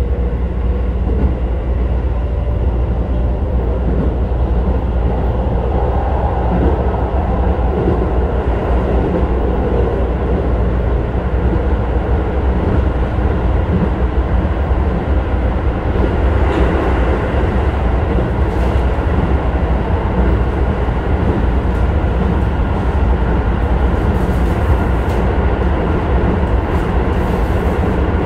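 Keisei 3000 series electric commuter train with Toyo IGBT-VVVF traction control, heard from inside the car while running at speed: a steady heavy rumble of wheels on rail and running gear, with faint steady tones over it. A few light clicks come near the end.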